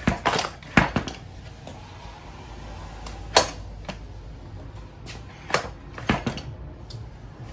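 Scattered sharp metal clinks and knocks of hand tools and parts while the engine mounts and lower suspension link of a 1994 Kawasaki KX80 dirt bike are worked loose, about half a dozen short taps with quiet between them.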